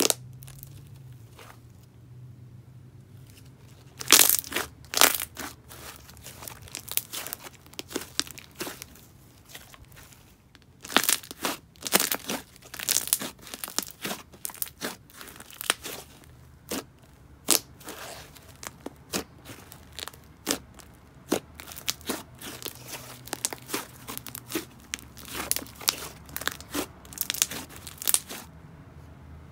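Thick white cloud-cream-type slime being kneaded, stretched and pressed by hand, giving off sticky crackling and tearing sounds. The crackles are sparse at first and come in dense clusters from about four seconds in.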